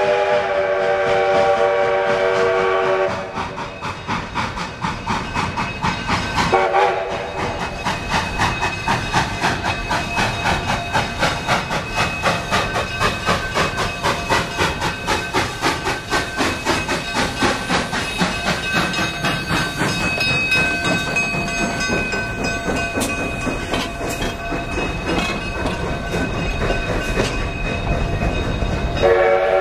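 Durango & Silverton K-36 narrow-gauge steam locomotive No. 481 blowing its chime whistle for about three seconds, then a short blast a few seconds later. It then works past with steady exhaust chuffs about twice a second, and its passenger cars roll by on the rails near the end, with the whistle starting again just as it ends.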